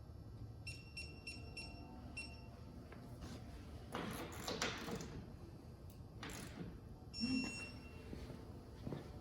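Electronic torque wrench beeping as a fastener is tightened to 55 Nm: about five quick high beeps in the first two seconds, then one longer beep a little past seven seconds as the set torque is reached. Scraping and clatter of tool handling in between.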